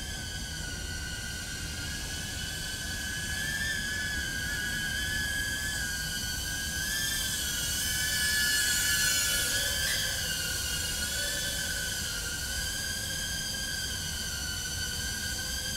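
Brushless motors and 2-inch propellers of a Tank95-HD FPV quadcopter whining in flight, the pitch wavering up and down with throttle and swelling loudest about nine seconds in.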